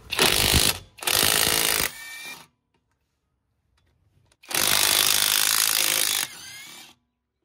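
Xtra Power XPT-485 cordless impact wrench hammering on a car's wheel lug nuts to break them loose: two bursts back to back at the start, then a third about four and a half seconds in. Each burst ends in a short, quieter whir.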